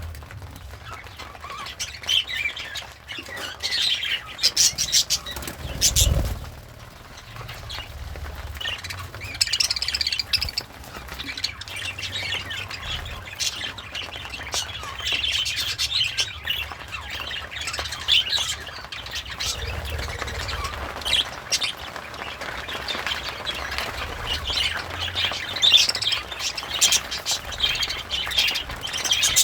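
Budgerigar chirping and warbling on and off, with scattered sharp clicks and a low thump about six seconds in.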